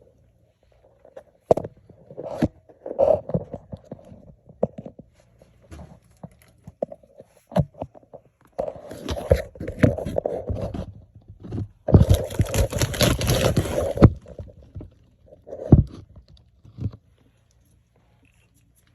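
Irregular scraping, knocks and clatter of hand work at a sludge-clogged steam boiler. There are two longer stretches of dense scraping, one a little before the middle and a louder one about two-thirds through.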